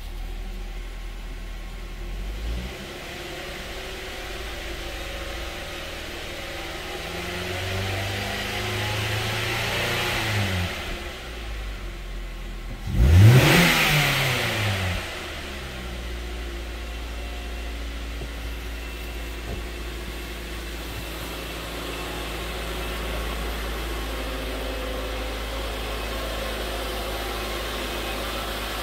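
2008 Mazda 3's 2.3-litre four-cylinder engine idling, revved slowly up and back down once, then revved sharply to about 5,000 rpm about halfway through, the loudest moment, before settling back to a steady idle.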